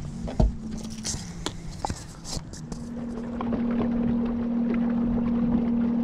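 Electric trolling motor on a small fishing boat, running with a steady hum that gets louder and stays even from about halfway through. Before that come a sharp knock and a few light clicks from handling on the boat deck.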